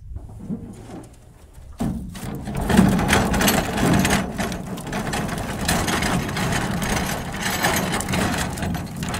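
Freshly caught fish flapping and thrashing against the floor of a metal boat: a fast, irregular drumming patter that starts suddenly about two seconds in and keeps going.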